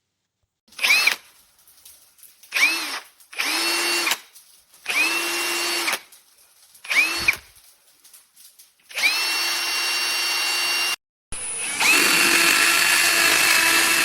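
AEG 18V brushless compact hammer drill-driver running in repeated trigger bursts. Each burst opens with a rising whine as the motor spins up, then holds steady. The first bursts are short; the later runs last a couple of seconds each, and a knock starts the last one.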